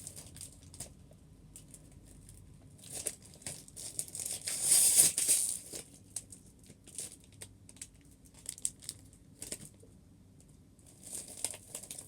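Plastic crinkling and rustling with small scattered clicks as Lego pieces are handled and searched through. The loudest rustle comes about five seconds in.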